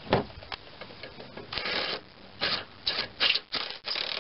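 A hand socket ratchet clicks in a series of short strokes, running a mower blade nut down onto its spindle, with a sharp knock near the start.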